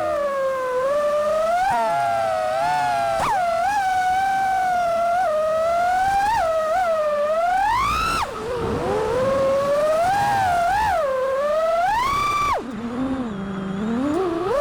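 5-inch FPV freestyle quadcopter's T-motor F60 Pro 1950KV brushless motors whining on 6S, the pitch swooping up and down as the throttle changes. The whine falls away abruptly about halfway and again near the end, each time climbing back.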